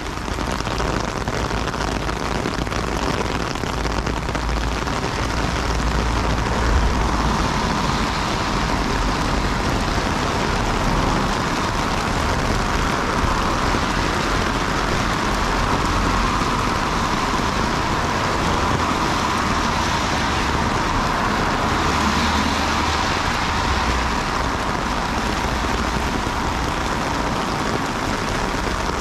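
Heavy rain pouring on a city street: a loud, steady hiss with a low rumble underneath.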